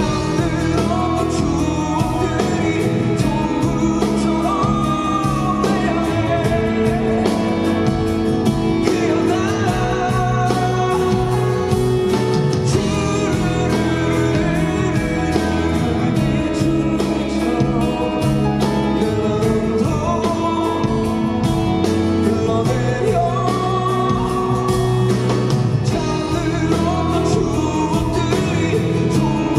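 Live song: a man singing with acoustic guitar accompaniment, steady throughout.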